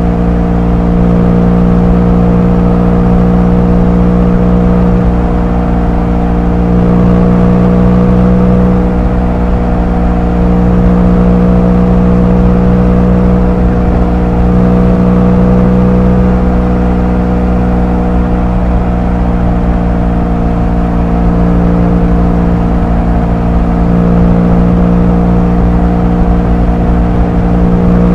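Motorcycle engine and exhaust running at a steady cruise, picked up on board. The engine note holds a nearly constant pitch throughout, swelling and easing slightly every few seconds.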